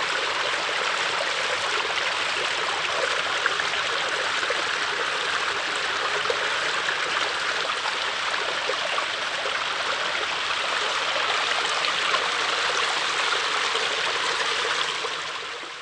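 Babbling brook: water running steadily, fading out near the end.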